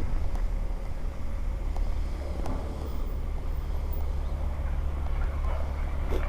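Steady low engine rumble from vehicles in the street, with a few faint clicks.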